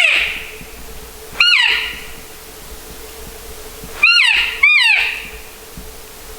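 Elk cow calls: short, nasal mews that each rise and then fall in pitch. One is trailing off at the start, another comes about one and a half seconds in, and a close pair follows about four seconds in.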